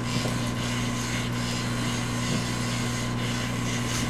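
A steady low hum over hiss, with a few faint taps scattered through it.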